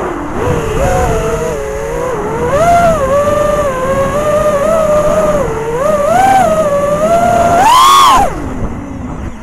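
Racing quadcopter's four 2306 2750kv brushless motors and 5040 props whining, heard from the camera on the quad, with the pitch rising and falling as the throttle changes. About eight seconds in, a hard throttle punch sends the whine up to its loudest, then it drops away sharply as the throttle is cut.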